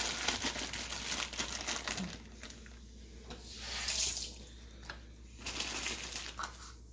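Water running from a kitchen tap while carrots are rinsed under it. It runs steadily at first, then stops and starts again in two short spells.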